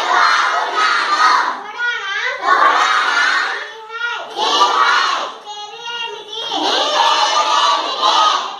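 A class of schoolchildren chanting words aloud in unison, loud and shouted, in phrases of a second or two with brief dips between them, as they recite Punjabi words after a pupil pointing at the blackboard.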